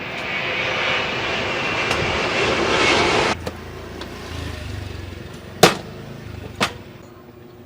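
Motor scooter engine revving, its roar rising for about three seconds before cutting off abruptly, then two sharp clicks about a second apart.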